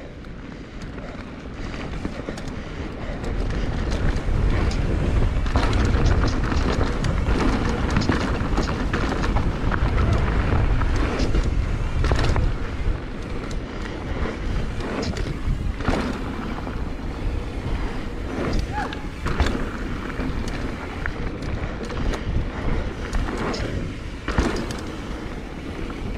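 Mountain bike descending a dirt jump trail: wind rumbling on the camera's microphone, tyres rolling on dirt and the bike rattling. Several sharp knocks in the second half, typical of jump landings and hits over the trail.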